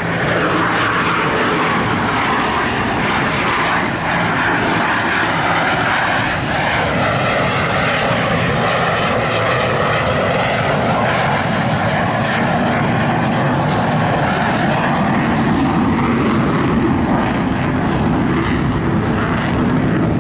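Blue Angels F/A-18 Hornet jet engines during a display pass: a loud, sustained jet rush whose tone sweeps and shifts as the aircraft pass.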